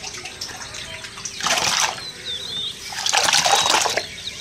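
Shallow water splashing in two bursts, about a second and a half in and again near the end, with water trickling between them, as a person wades out onto a bank carrying a wet cast net.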